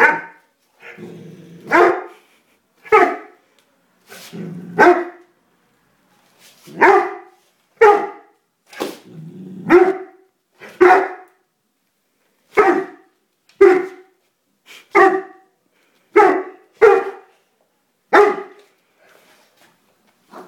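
A dog barking in single sharp barks, about fourteen of them spaced one to two seconds apart, with a low growl leading into several of the barks.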